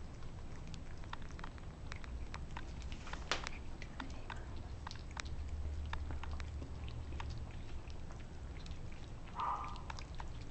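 A mother cat and her five-week-old weaning kittens eating wet food from a plate: many quick, irregular clicks of lapping and chewing over a low steady hum.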